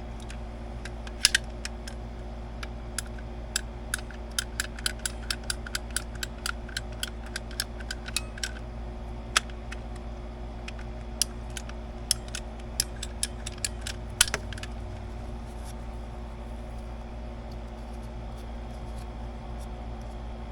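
Ratcheting PVC pipe cutter clicking as it is squeezed through plastic drain pipe: a quick run of sharp clicks about three a second, then scattered clicks, the last of them sharp, about 14 s in, over a steady low hum.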